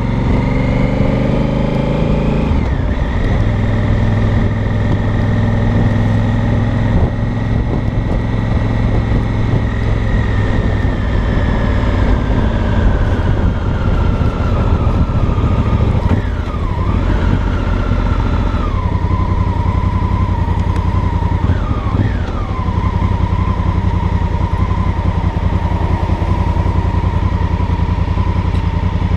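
Honda Africa Twin Adventure Sports' parallel-twin engine and exhaust under way at low speed. The revs rise for the first couple of seconds, then drop sharply and climb again. The pitch falls a couple more times, then the engine runs steadily at low revs.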